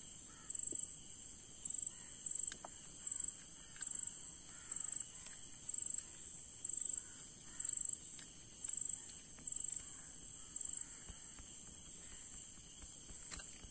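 Crickets chirping: a loud high chirp repeating about every three-quarters of a second over a steady high insect drone, with a few faint clicks.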